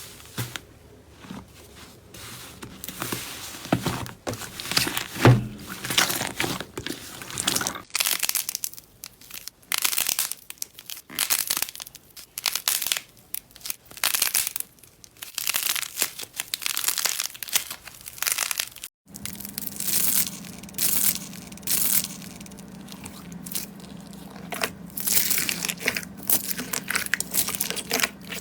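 Crunchy slime or cracking clay being squeezed and pressed, giving repeated crackling, crinkling crunches in bursts of about a second. About two-thirds through, the sound breaks off sharply and resumes with a low steady hum beneath the crunches.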